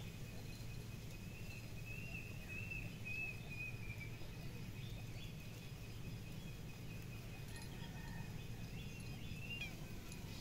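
Outdoor ambience: birds chirping in short, wavering calls over a steady low rumble.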